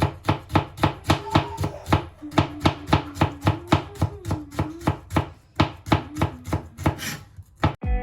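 Knife chopping food on a cutting board in a fast, even rhythm of about four to five strokes a second, stopping near the end.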